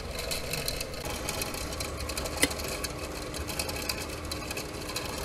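A 12-volt car fan motor running steadily as a blower on a miniature steam locomotive's smokestack, drawing air through the fire tubes to get the fire going. One short click about two and a half seconds in.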